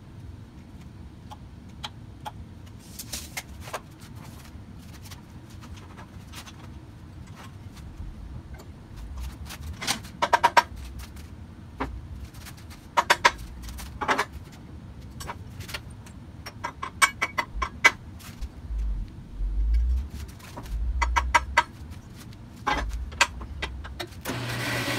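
Scattered clicks, taps and short rattling runs, with a few low thumps, as a 4x4 steel square tube is set in the vise of an Ellis horizontal band saw and the saw arm is lowered onto it. About half a second before the end the band saw's motor starts and runs with a steady hum.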